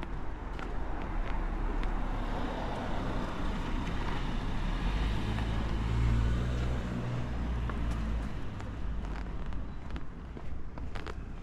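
A motor vehicle passing close by, its engine and tyre noise growing louder, loudest about six seconds in, then fading.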